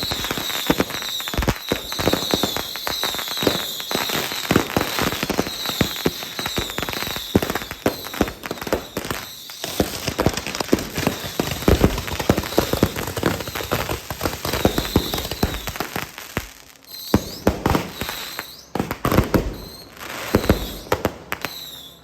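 Festival fireworks and firecrackers going off in a dense, rapid run of sharp cracks and bangs with a crackling hiss. They thin out into scattered bangs with short pauses in the last several seconds.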